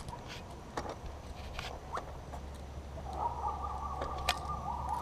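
Scattered small clicks and ticks of fishing tackle being handled while a tangled lure and line are worked loose, the sharpest about four seconds in. About three seconds in, a steady wavering pitched sound of unclear source joins and continues.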